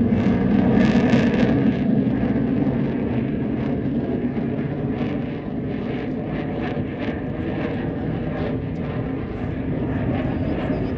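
Military aircraft flying over: a loud, steady, low rumble of engine noise, strongest in the first couple of seconds and then easing a little as it moves away.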